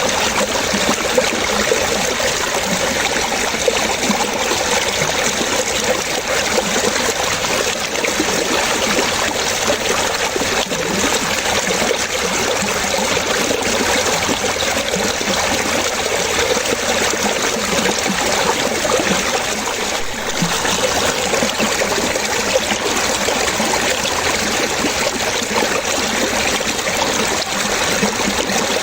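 Running water trickling and splashing steadily, with a constant babbling texture.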